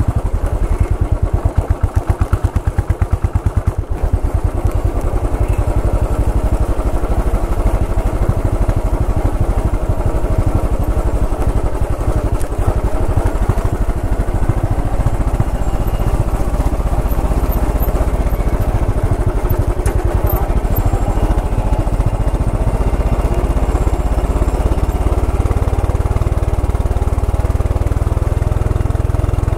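Royal Enfield Bullet 500 EFI's air-cooled single-cylinder engine running as the bike is ridden, its exhaust beats slow and distinct for the first few seconds, then running evenly.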